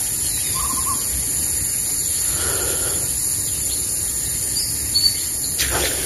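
Steady outdoor ambience of a high, even insect drone with a low background hiss, a few faint short bird calls, and one brief sharp noise about five and a half seconds in.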